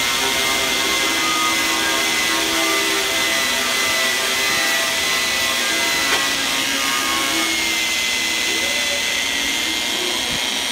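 Electric angle grinder running continuously with a high whine, its polishing disc worked against the cooling fins of a Yamaha 125cc engine. The pitch dips slightly about seven seconds in.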